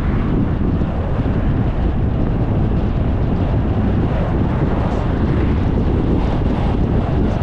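Steady wind rushing over the microphone together with the road noise of a car driving along at speed.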